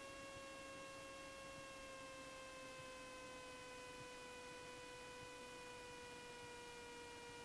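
Faint electrical whine on the cockpit intercom audio feed: one steady tone with overtones that sinks slightly in pitch about two seconds in. No engine or voices are heard.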